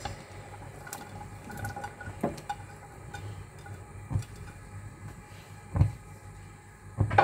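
Chunks of chayote and long beans slid off a plate into a pot of simmering broth with soft splashes, then several dull knocks of the ladle and plate against the pot and counter.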